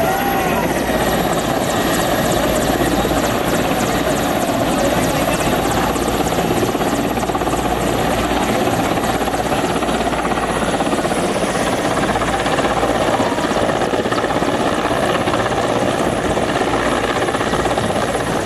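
Helicopter rotor and engine running, a loud, steady wash of noise.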